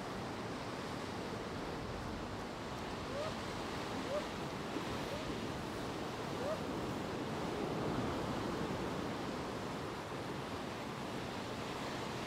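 Sea surf surging and breaking against rocky cliffs: a steady rushing wash of water that swells a little about eight seconds in.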